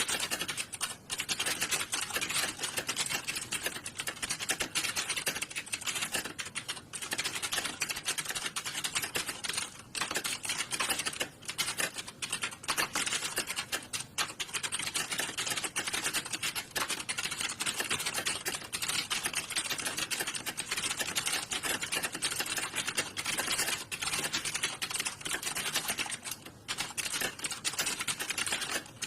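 Many computer keyboards being typed on at once in an exam hall, a dense, unbroken clatter of overlapping key clicks at a steady level.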